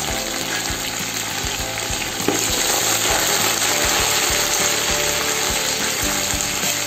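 Sliced onions, fried brown, and freshly added coriander leaves sizzling in hot oil in a metal pot, stirred with a perforated ladle, with small knocks of the ladle in the pot. The sizzle gets a little louder about two seconds in.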